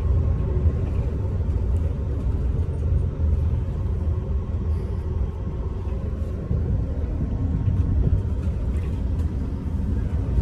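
Steady low rumble of engine and road noise inside a moving bus, heard from a passenger seat.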